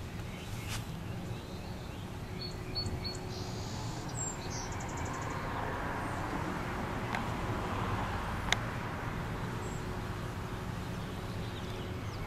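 Outdoor suburban ambience: a steady low hum with a broad swell of noise through the middle, a few short high bird chirps about two and a half to five seconds in, and a single sharp click after about eight seconds.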